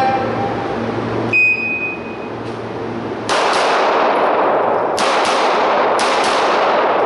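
Shot timer's start beep, one steady high tone lasting about a second, then about two seconds later a handgun firing three quick pairs of shots. Each shot rings with a long echo in the indoor range hall.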